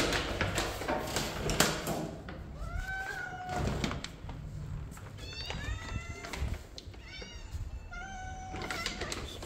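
Dry plastic cat food bag rustling and crinkling for the first two seconds, then kittens meowing for food: one long meow about three seconds in, followed by several shorter, higher meows.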